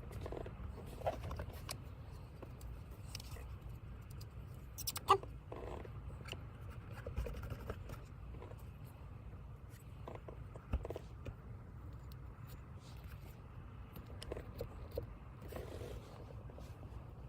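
Handling noises of gauze tape and double-sided tape being wrapped around a metal shift lever shaft: scattered rustles, scrapes and small clicks, the sharpest about five seconds in, over a steady low hum.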